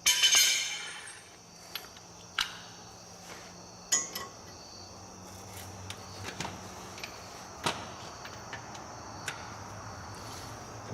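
Metal tools and bolts clinking during hand work on the truck's frame. A rattling metallic clatter comes at the start, then scattered sharp clicks and knocks. Crickets chirp steadily in the background.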